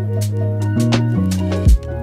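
Outro background music with a steady beat: a sustained bass line that changes notes, regular hi-hat strokes, and a heavy kick-drum hit near the end.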